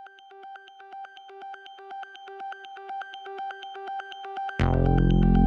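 Electronic background music: a quickly pulsing synthesizer tone fades in and grows louder, then the full synth track with deep bass comes in loudly near the end.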